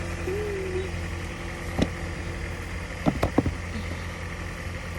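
Car engine idling with a steady low hum, with a few sharp knocks and taps: one about two seconds in and a quick cluster a second later.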